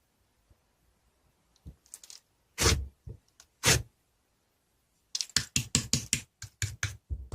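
Sharp clicks and cracks. There are two loud ones a second apart near the middle, then a quick run of many clicks near the end.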